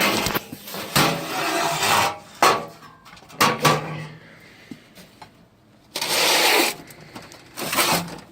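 Computer hardware being handled: irregular scrapes, rustles and knocks, with a sharp knock about two and a half seconds in and a longer scraping rustle about six seconds in.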